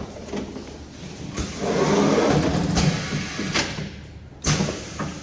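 Semi-automatic cup sealing machine operating: a louder stretch of mechanical noise starts about a second and a half in and lasts about two and a half seconds, then a sharp click near the end.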